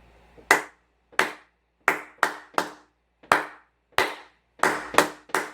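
Hand claps beating out the San Juan rhythm's count, twice through: two claps, then three quicker ones, then two, then three.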